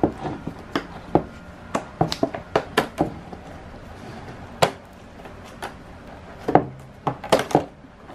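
Plastic trim strip being pried off a BMW E46 headlight housing: a string of sharp plastic clicks and snaps as its clips let go, bunched about a second or two in and again near the end.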